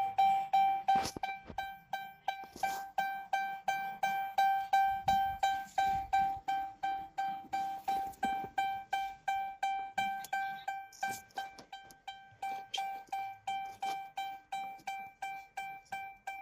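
2013 Chrysler 300's electronic warning chime dinging over and over, about three clear pings a second, each fading quickly. A few faint clicks or knocks sound in between.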